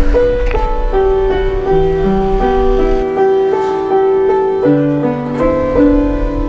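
Background music: a piano passage of held notes.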